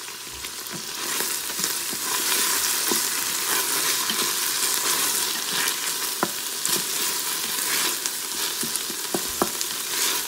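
Sliced onions sizzling in hot oil in a stainless steel pot, stirred with a wooden spatula that scrapes and knocks against the pot now and then. The sizzle grows louder about a second in.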